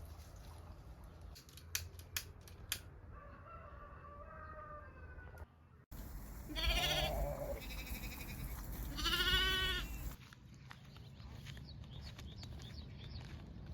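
Farm animals calling: a faint drawn-out call, then two loud wavering calls about two seconds apart, after a few sharp clicks.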